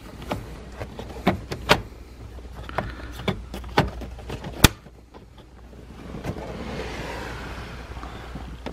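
Plastic steering column trim being worked loose and handled: a series of sharp clicks and knocks as the pieces unclip, then a steady rubbing, scraping sound over the last few seconds.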